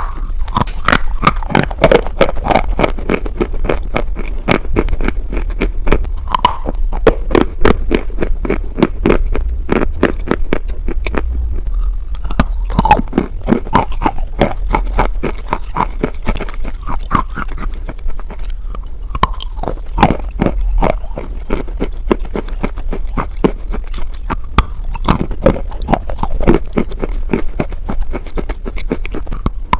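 Dry edible chalk being bitten and chewed right at the microphone: a dense, continuous run of sharp, crumbly crunches.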